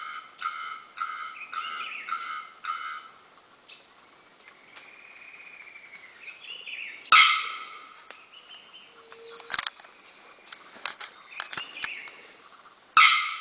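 Bearded bellbird calling: a quick series of repeated ringing notes, about three a second, for the first few seconds. Then a single loud explosive note about seven seconds in, and another near the end.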